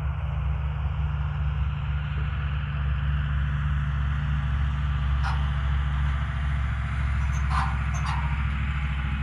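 Farm vehicle engine running steadily as it hauls a trailer loaded with bales, with a few faint knocks or rattles in the second half.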